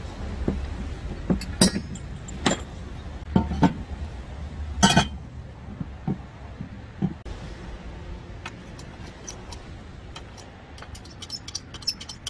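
Metal parts being handled and set down on a work surface: a steel water-heater mounting bracket and a galvanized steel channel clink and knock several times, loudest about five seconds in, then lighter small metal ticks.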